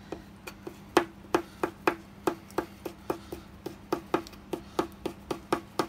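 Kitchen knife finely chopping a rolled shiso leaf on a plastic cutting board: sharp taps of the blade hitting the board, about three to four a second.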